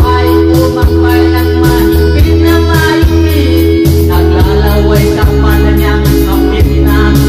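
A man singing into a microphone over a loud music backing track, his voice amplified.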